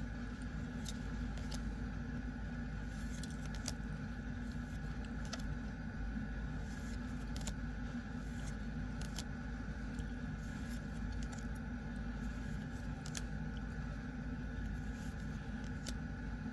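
Sparse light clicks and rustles of trading cards being handled, over a steady low background hum.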